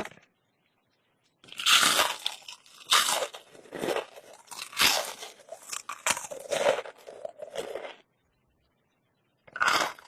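Crunchy bites and chewing of crispy KFC fried food, as in an eating show. A rapid series of loud crunches runs for about six seconds, stops for a moment, then comes back with another crunch near the end.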